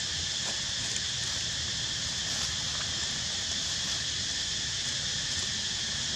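Steady, unbroken high-pitched drone of an insect chorus in the trees, with a low rumble underneath.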